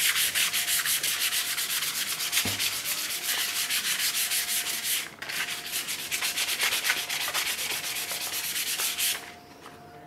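Sandpaper rubbing over a sealed rubber-wood piece in quick, even strokes, with a short pause about five seconds in and a stop about nine seconds in. This is the scuff-sanding of the sanding-sealer coat before the clear coat.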